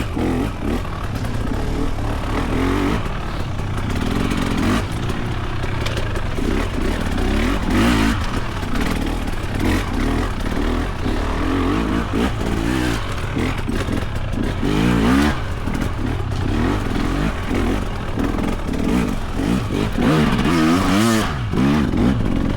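Husqvarna TX300 300cc two-stroke dirt bike engine lugging under load, its pitch rising and falling again and again with the throttle.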